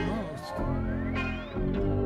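Live band music from guitar, trumpet and electronics: held chords in blocks of about a second, with a long rising glide in pitch over the first second and a half.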